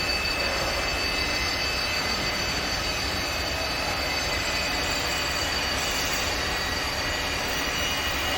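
Steady machine noise from a CNC wood lathe: a constant low hum and even hiss with several high, unwavering whining tones, like motor and drive whine.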